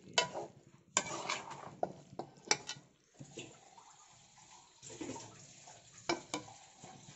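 A spoon stirring raw chicken through a wet crushed-onion and tomato masala in an aluminium kadai: soft squelching and rustling, with irregular sharp clinks and scrapes of the spoon against the pan. There is a quieter pause around the middle.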